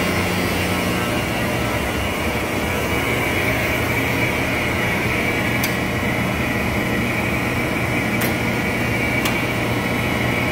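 Steady hum of elevator machine-room equipment running, its low tone shifting in the first few seconds. Over it come three sharp clicks from relays picking or dropping on the Dover Composite relay controller, about 6, 8 and 9 seconds in.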